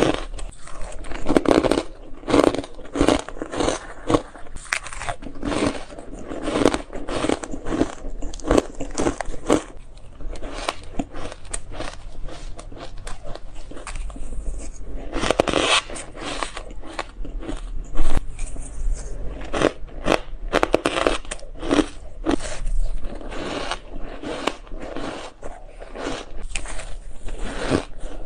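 Shaved ice being bitten and chewed close to the microphone: dense, irregular crunching, with one especially loud crunch a little past the middle.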